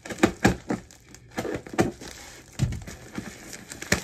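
Plastic packaging being handled while a parcel is unpacked: irregular crinkling and rustling with scattered crackles and a few soft knocks.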